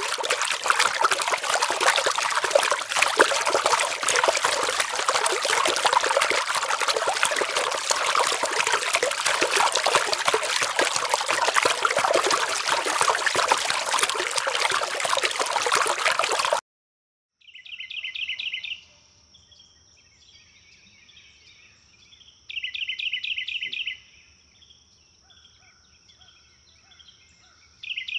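Dense rushing, bubbling water noise that cuts off sharply about two-thirds of the way through. After it comes rainforest ambience: a steady high insect whine, with short rapid trilling calls about five seconds apart, one of them starting just at the end.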